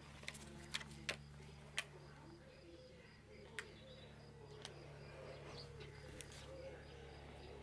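A dove cooing faintly over a steady low hum, with a few light clicks and rustles from a half-face respirator and hood being pulled on.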